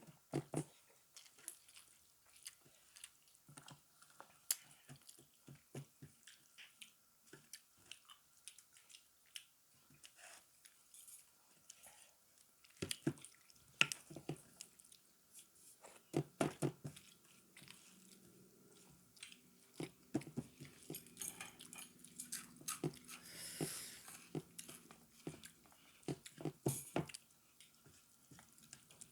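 Close-up eating sounds of a person chewing a meal of rice, dal and egg: irregular wet chewing, smacking and small clicks, fairly faint.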